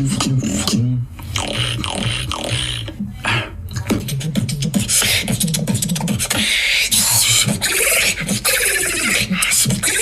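Beatboxing: pulsing low vocal bass notes with sharp mouth clicks and sliding pitched tones, then from about halfway a loud, hissing, scratch-like run of rapid high noise.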